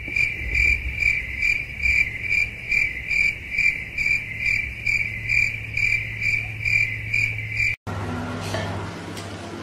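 High-pitched insect chirping, about two chirps a second, over a low hum; it cuts off abruptly near the end.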